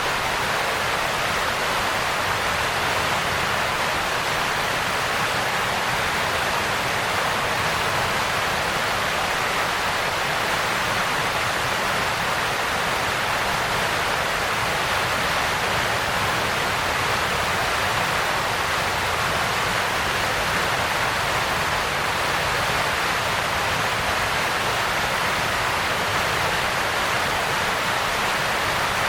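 Waterfall rushing: a steady, even wash of falling water that does not change.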